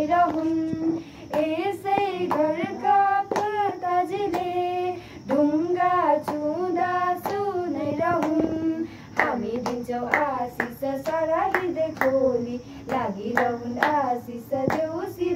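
Young girls' voices singing a Nepali Bhailini (Tihar festival carol), with hand claps keeping the beat.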